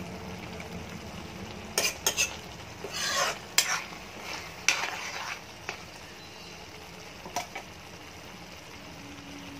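Metal spoon scraping and stirring in a metal kadai of sizzling taro curry. There is a run of scrapes against the pan in the middle and a single clink later, over a steady sizzle.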